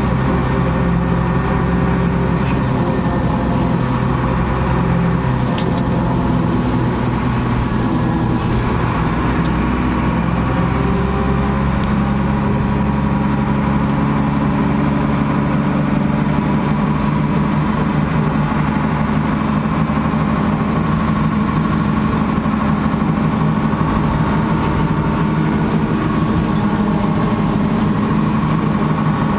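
A 2000 NovaBus LFS city bus's engine running steadily, heard from inside the bus, with a few faint rattles.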